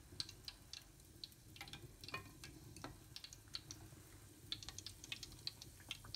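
Faint crackling and popping of hot lard in a small enamel pot as a butterfly-shaped cookie deep-fries on its iron form: irregular sharp pops scattered throughout.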